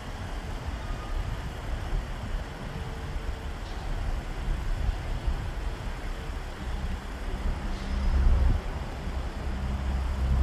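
Low, uneven rumble of a passing Great Lakes bulk freighter, with a steady low drone coming in and growing louder over the last couple of seconds.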